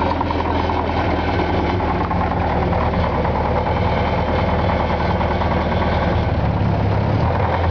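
1943 Ford GPW jeep's four-cylinder flathead engine idling steadily.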